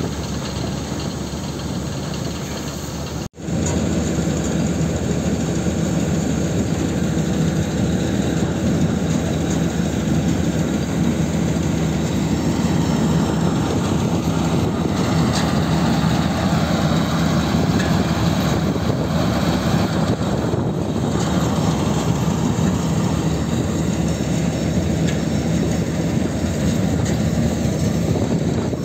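Combine harvester running steadily, a loud, even mechanical din of engine and machinery. It drops out for an instant about three seconds in, then carries on slightly louder.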